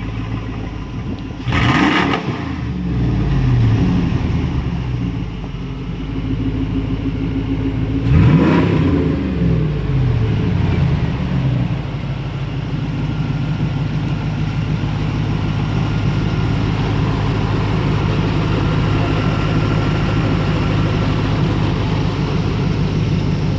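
Pickup truck engine running after a restart, revved twice, about two and eight seconds in, each rev rising then falling back, then settling into a steady idle. It runs again after water was drained from the fuel tank and fresh gasoline put in.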